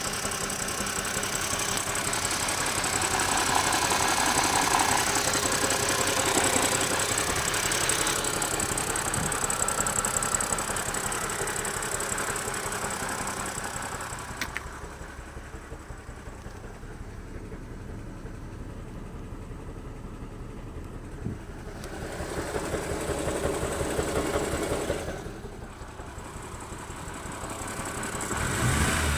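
BMW E90 330i's straight-six engine running, suspected by its owner of misfiring. The sound is fuller for the first half, drops and goes duller from about halfway through, then swells twice more.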